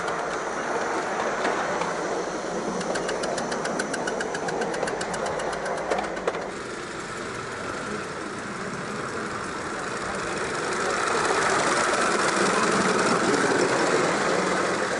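Miniature live-steam locomotive running by with a fast, even beat of exhaust chuffs. Near the end a loud steady hiss of escaping steam takes over.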